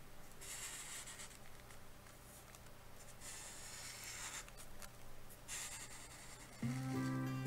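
Sharpie marker tip drawing across paper: several scratchy strokes, each about a second long, with pauses between. Background music comes back in near the end.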